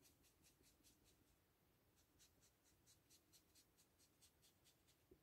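Faint, quick rubbing strokes on card stock, about four a second with a short pause in the middle: a card base being folded in two and its crease pressed down.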